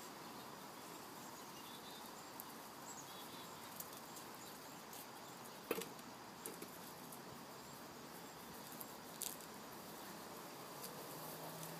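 Faint outdoor background: a steady hiss with a few soft chirps and scattered sharp clicks, the loudest about six seconds in and another about nine seconds in.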